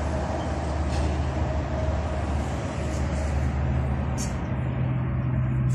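A motor running steadily with a low drone, its pitch stepping up about three seconds in.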